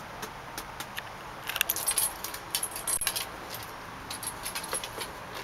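A bunch of keys jangling and clinking as they are handled, in several short bursts, busiest between about one and a half and three seconds in.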